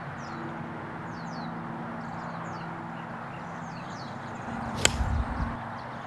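Golf club striking a teed-up ball once: a single sharp crack about five seconds in, with a brief low rush around the swing.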